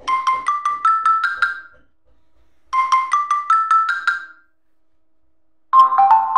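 Built-in Samsung Galaxy J5 (2016) ringtone: a marimba-like melody of about eight short notes stepping upward, played twice with a pause between. Near the end a different ringtone with a fuller melody begins.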